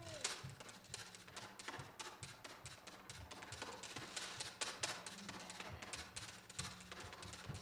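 Washboard played as percussion in a quick, steady rhythm of sharp taps and scrapes.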